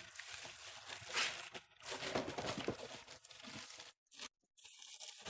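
Faint rustling and crinkling noises, cut by a brief drop to full silence a little after the middle.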